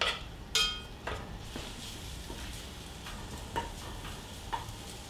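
Two sharp, ringing clinks of a knife against the enamelled cast-iron pot as the bacon is scraped in, then raw bacon strips sizzling faintly as the pot heats, with a wooden spoon knocking lightly now and then while stirring.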